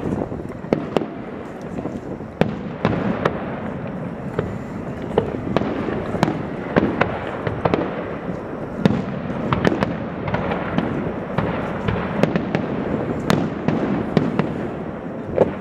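Fireworks display going off: frequent sharp bangs and crackles, a few each second, over a continuous rumbling wash of lighter bursts.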